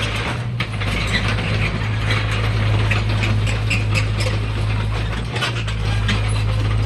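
SANY 60C mini excavator running: a steady low engine hum with rapid metallic clicking and rattling over it. The hum drops out briefly twice, about half a second in and again a little after five seconds.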